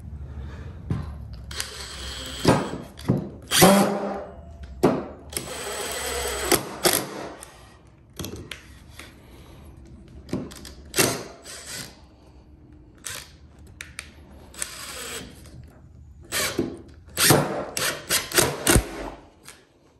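Makita 18V cordless impact driver with a Phillips No. 2 bit hammering a Phillips-square-drive screw into a wood block, in several short bursts with pauses between.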